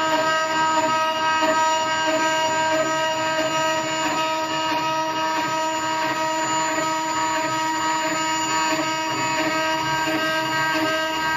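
CNC router spindle running at a steady whine while its small end mill engraves letters into an aluminium plate, the cutting noise of the cutter in the metal under the whine.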